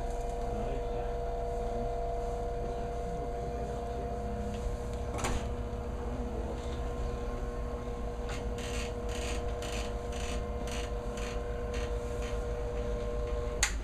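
Electric massage machine running against the back muscles with a steady motor hum, its pitch shifting slightly as it is moved. In the second half comes a run of faint ticks about three a second. Near the end a click comes and the hum stops.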